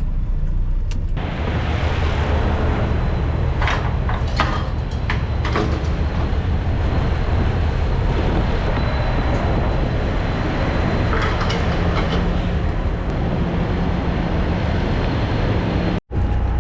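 Semi truck's diesel engine running at low speed, a steady low hum under a wash of noise, with a few light clicks. The sound cuts out sharply for an instant near the end.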